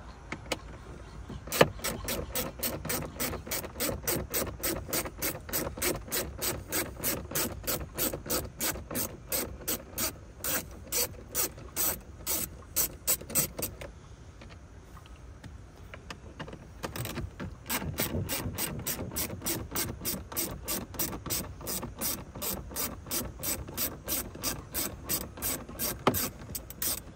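Small hand ratchet clicking at an even pace, about three clicks a second, as it undoes screws holding a dashboard trim panel. There are two long runs of clicks with a pause of a few seconds about halfway, one run for each screw.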